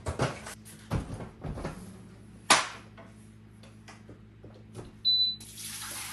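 Knocks and clunks of an electric pressure cooker being handled and set down on a wooden table, with one sharp, loud clunk about two and a half seconds in. About five seconds in comes a short, high electronic beep, and then a steady hiss begins.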